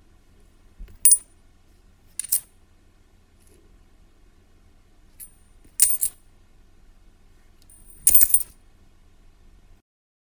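Metal coins clinking, four short bright clinks spaced a second or more apart, the last a brief jingle, over a faint low hum.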